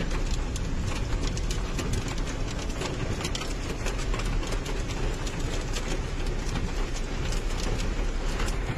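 Hail and heavy rain drumming on a car's roof and windshield, heard from inside the car as a dense, steady patter of many small ticks over a low rumble.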